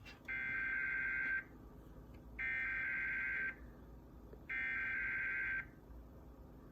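Emergency Alert System SAME header: three bursts of the digital data tone, each about a second long and a second apart, that open an EAS required weekly test.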